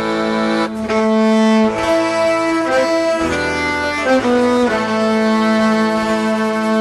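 Small acoustic ensemble playing live: a violin melody over accordion, with long held notes that change about once a second, backed by acoustic guitar and cajón.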